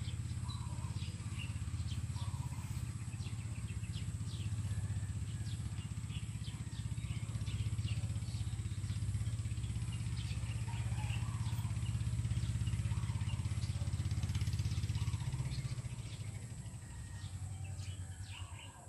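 A small engine drones low and steady, growing louder to a peak about two-thirds of the way through and then fading away near the end, while small birds chirp over it.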